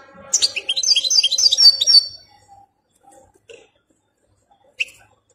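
European goldfinch singing a quick, twittering phrase of rapid high notes, then falling mostly silent with a few faint notes and one sharp call near the end.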